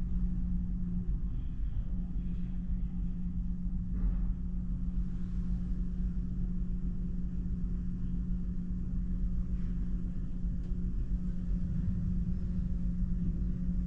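A large passenger ferry's onboard machinery and ventilation, heard inside a cabin as a steady low rumble with a constant hum.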